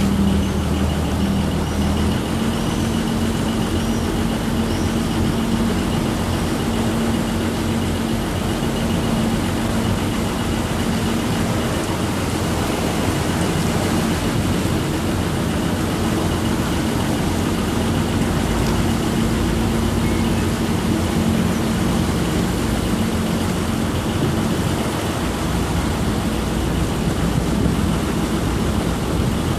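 Water taxi's engine running steadily under way, with water rushing along the hull; the engine note shifts a little about two seconds in.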